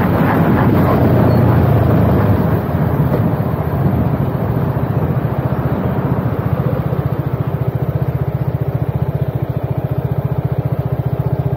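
Motorcycle engine, louder for the first two seconds or so, then settling into a steady idle with even firing pulses.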